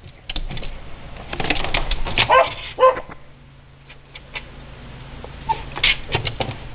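Miniature schnauzer barking in short alarm barks, two about two seconds in and another near the end, set off by a dog barking outside.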